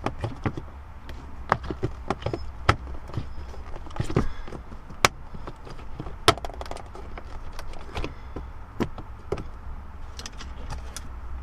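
Plastic shifter trim cover being pressed and pried at by hand, giving irregular sharp clicks and knocks of plastic against its clips and the console.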